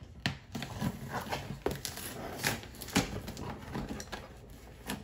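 Packing tape on a cardboard box being slit open with a small plastic cutter: a run of short scrapes, ticks and knocks on the cardboard. Short noises from a pug beside the box are mixed in.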